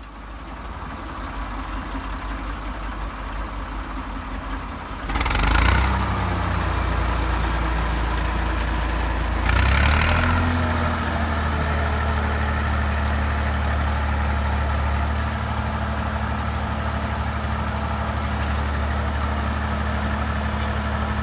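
IMT 542 tractor's three-cylinder diesel engine running, speeding up in two steps about five and ten seconds in, then holding a steady, higher engine speed.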